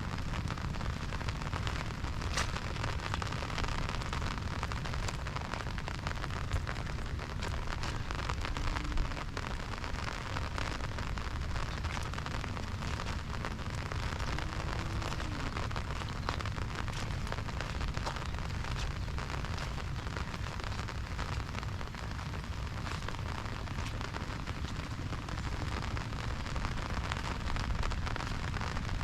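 Steady monsoon rain, with a constant hiss and many separate drops ticking on an umbrella overhead.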